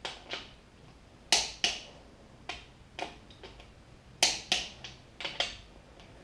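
Click-type torque wrench clicking repeatedly on small-block Chevy main cap bolts as they come up to torque. The sharp clicks come mostly in pairs about a third of a second apart, with roughly a second between pairs.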